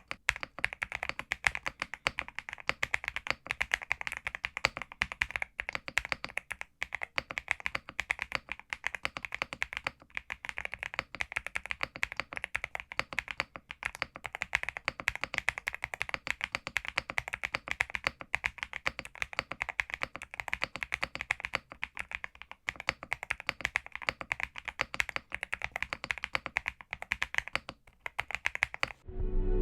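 Fast, continuous typing on a Zuoya GMK67 mechanical keyboard with Leobog Graywood V3 switches and SA profile keycaps: a dense stream of keystrokes with brief pauses, stopping just before the end.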